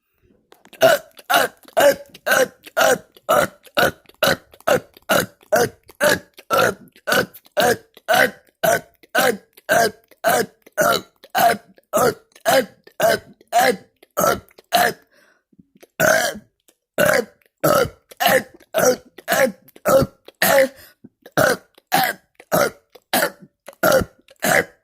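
A person burping over and over in quick, regular succession, short burps about two or three a second, with a pause of about a second partway through before the burps start again.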